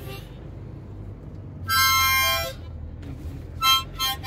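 Harmonica played by a child: a held chord about halfway through, then two short notes near the end, over a steady low car-cabin rumble.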